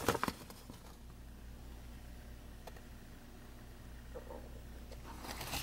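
Quiet room tone with a steady low hum and a faint click about halfway through. Faint rustling of a paper instruction sheet being handled comes near the end.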